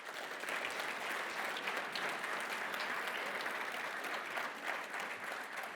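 Conference audience applauding steadily as an award recipient comes to the stage, fading slightly near the end.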